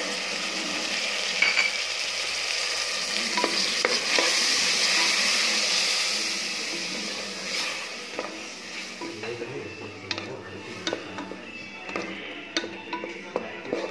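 Ground tomato sizzling as it goes into hot oil and spices in a pressure cooker, stirred with a wooden spatula. The sizzle is strongest early on and dies down over the second half, leaving the spatula scraping and knocking against the pot.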